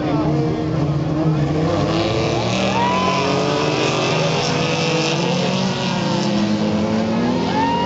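Several off-road race pickup trucks' engines running together as the pack moves off slowly, their pitches rising and falling independently. A brief high glide is heard about three seconds in.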